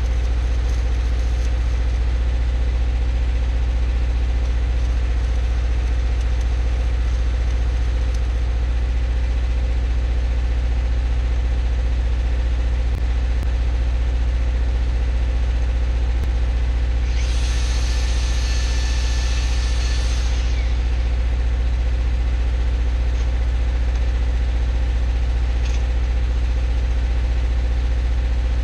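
An engine idling steadily with a low, even hum. About seventeen seconds in, a high hiss rises over it for about three seconds, then stops.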